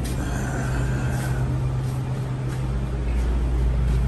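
A steady low mechanical hum, getting a little louder toward the end, with a few faint ticks.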